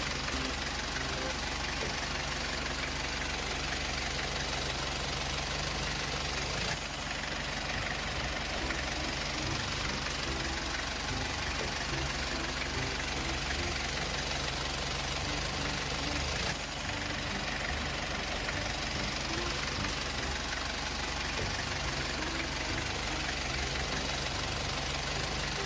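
Truck engine sound running steadily, with two brief dips about a quarter and two-thirds of the way through.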